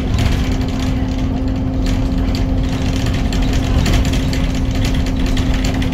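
Interior of a single-deck bus on the move: the engine runs with a steady low rumble and hum, and fittings rattle and click throughout.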